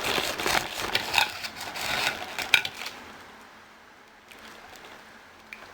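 Light clicks and clatter of small objects being handled on a table, busy for the first three seconds, then quieter with a few faint ticks.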